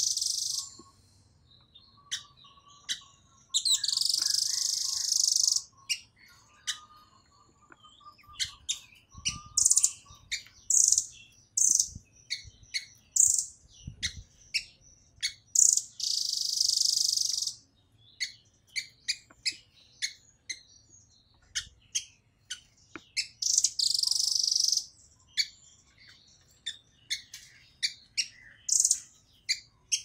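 Blue nuthatch calling: a fast, irregular string of sharp, high chip notes, broken three times by a dense high trill about two seconds long.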